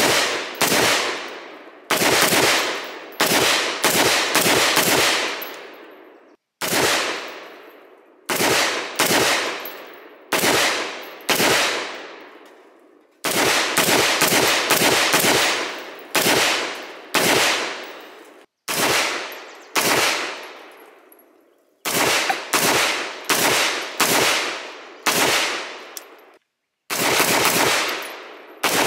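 Firearm shots fired in quick strings, several shots each, every shot ringing out and fading. The strings break off abruptly several times, as in a string of separate range clips.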